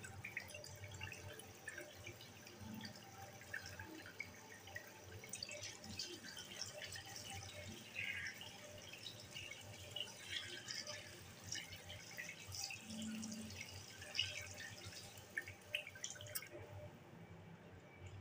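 Water dripping and splashing at a tap or sink as fish is being washed, in irregular small splashes that die away near the end.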